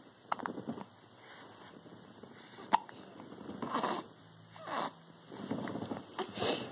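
Baby hiccuping: a few short, sudden hiccups a couple of seconds apart, with soft breaths between.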